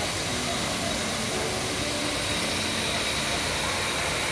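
Large park fountain running: a tall water jet and a ring of sprays falling back into the pond, making a steady rushing hiss of water.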